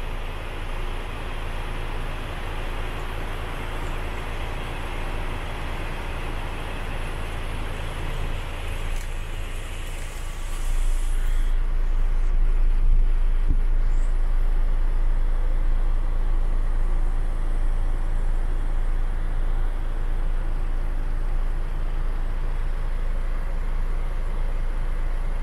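Paccar MX 410 bhp six-cylinder turbo diesel of a DAF XF105 idling steadily, heard from inside the cab. About ten seconds in the low rumble gets louder and the hiss above it fades.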